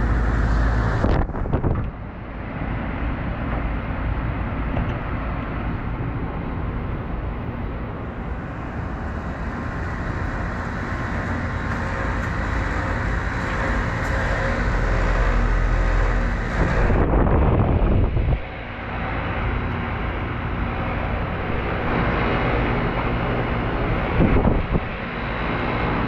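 Outdoor heat pump units running in heating mode: a steady compressor hum under the rush of the condenser fans. A few short rushes of low noise break in near the start, about two-thirds of the way in, and near the end.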